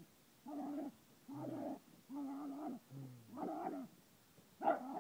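A small dog giving a run of about six short whining grumbles, roughly one a second, as it squares off in play with another dog.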